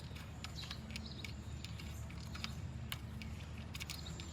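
Faint, scattered light clicks of small metal parts being handled as the brake caliper's bolts are threaded in by hand, over a low steady hum.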